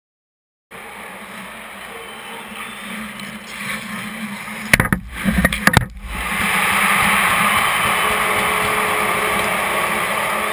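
Ice hockey rink sound from a camera inside the goal: arena noise, then a burst of hard knocks and clatter about five seconds in as players crash into the crease, followed by a loud, steady crowd cheer for the goal.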